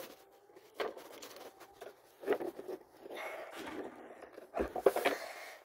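Rustling and scattered knocks from a phone being carried and handled, rubbing against clothing, with the loudest cluster of knocks near the end.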